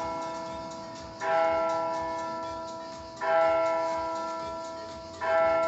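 Electronic church bells tolling a single bell, struck every two seconds, three times, each strike ringing on and fading slowly before the next.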